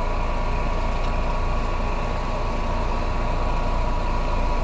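Outdoor air-conditioning condensing unit running, its condenser fan and compressor giving a steady hum and whoosh with a few constant tones.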